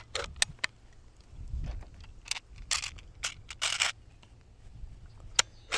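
Scattered clicks and short rattles of a Hatsan Blitz .30 caliber air rifle being handled and readied by hand, with a couple of longer scraping rattles around three to four seconds in.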